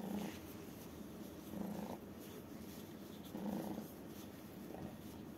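Tabby kitten purring as a gloved hand strokes it, a steady low buzz that swells louder about every two seconds with each breath.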